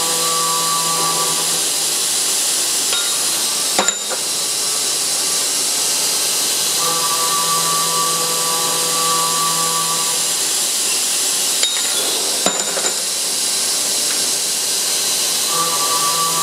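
Automatic circular cold saw with a 285 mm, 72-tooth blade cutting 21 mm S45C (1045) steel bar in repeated cycles, over a constant machine hiss. A steady whine lasting about three and a half seconds marks each cut: one at the start, one midway and one beginning near the end. Sharp clunks from the machine fall between the cuts, once about four seconds in and twice about twelve seconds in.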